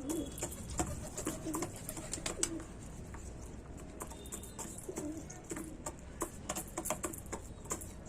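Chickens pecking at feed: many quick, irregular beak taps, with short soft low-pitched calls among them.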